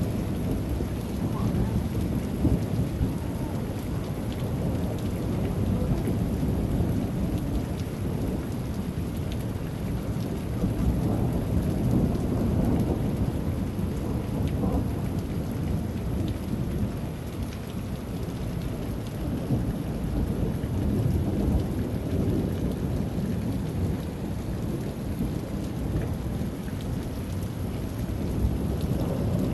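Thunderstorm: rain falling steadily under long, deep rolls of thunder that swell and ease every few seconds, with no sharp crack.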